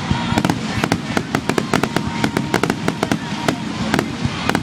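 Fireworks going off in a rapid barrage: many sharp bangs and crackles, several a second, overlapping one another.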